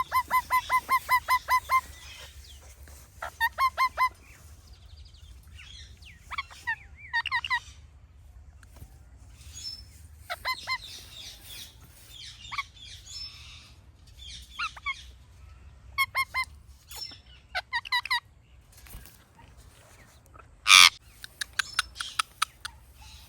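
Indian ringneck parrot calling in quick runs of short, sharp squawks, several a second, in bursts with pauses between. One longer, louder screech comes near the end.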